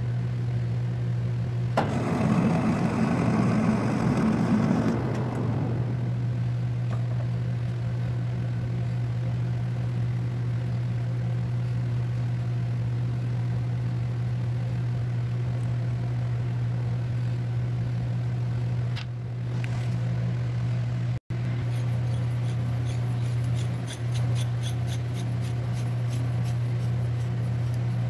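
Metal lathe running with a steady hum. About two seconds in, a louder rough scraping rises over it for around three seconds, then it settles back to the steady hum.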